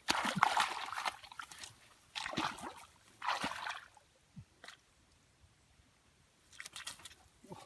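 Shallow rice-field water sloshing and splashing in four short bursts, as hands work through it.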